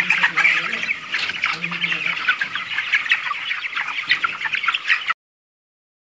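A large flock of young broiler chickens peeping and chirping together in a dense, continuous chatter. The sound cuts off abruptly about five seconds in.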